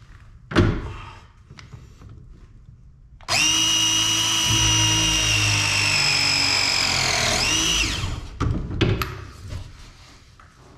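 Battery-powered copper press tool pressing a fitting: its motor whines steadily for about four and a half seconds, rises briefly in pitch and stops. A click comes about half a second in, and a few clacks near the end.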